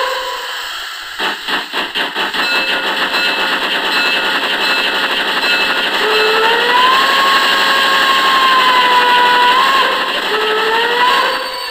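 Steam locomotive starting away: a quick run of exhaust chuffs begins about a second in and blends into a steady rushing sound. High squealing tones slide up and down in pitch over the second half.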